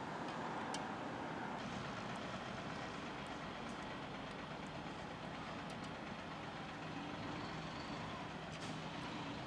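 Steady outdoor background noise, even throughout, with a few faint short ticks.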